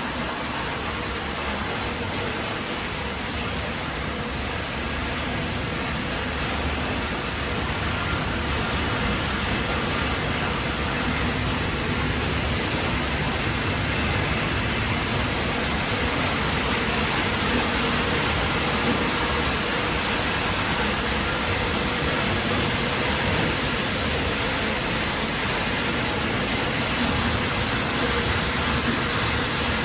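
Recycling-line machinery running steadily: a continuous mechanical din with a faint hum underneath, getting a little louder toward the middle.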